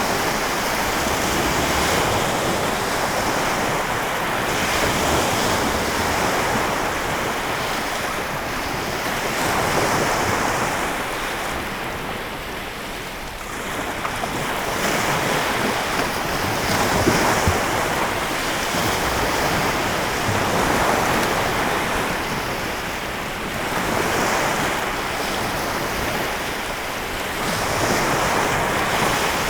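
Lake Michigan waves breaking on the shore in a continuous wash that swells and falls back every few seconds, with wind on the microphone.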